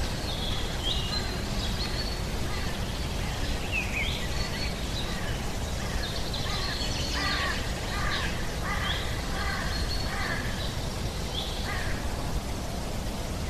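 Outdoor nature ambience: a steady low rumble of wind-like noise with birds calling over it, several high whistled calls that dip in pitch. From about halfway in, a crow caws repeatedly, roughly one call every half second.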